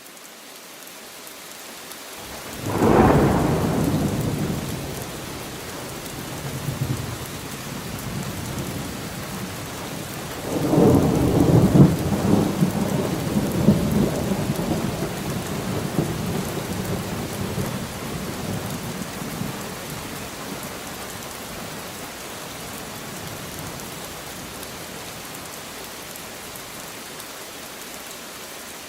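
Steady rain falling on leaves, with two peals of thunder: a sharp crack about three seconds in that rumbles away over a few seconds, and a longer rolling rumble starting about ten seconds in that dies out around twenty seconds, leaving the rain alone.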